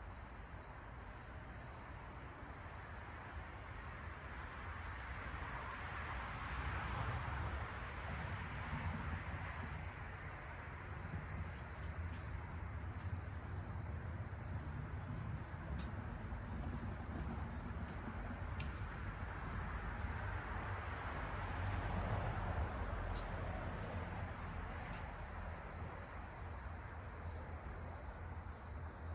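Steady high chirring of crickets or other insects, with a rushing noise that swells twice underneath and a single sharp click about six seconds in.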